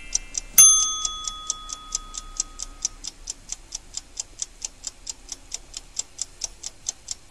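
Ticking-clock sound effect, with steady sharp ticks about four a second. A single bell-like ding comes about half a second in and rings on for a couple of seconds.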